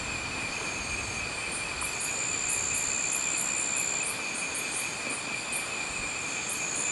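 Night insects, crickets among them, trilling steadily at a high pitch. A second, shriller trill comes and goes, and quick high chirps repeat over it.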